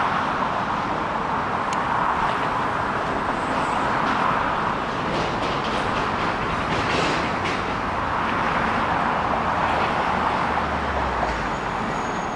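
Steady road and wind noise of a moving vehicle, an even rush with a brief low rumble near the end.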